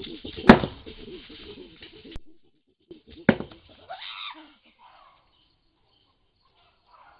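Wild chimpanzee calling in a quick rhythmic series of hoots, broken about half a second in by one loud bang at the tree. After a break comes a second bang and a call that rises in pitch, then quiet.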